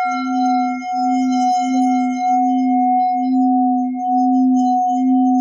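Tibetan singing bowl, 15.6 cm and 640 g, sung by rubbing a mallet around its rim: a steady hum on C4 with a higher overtone ringing above it, swelling and easing about once a second as the mallet circles.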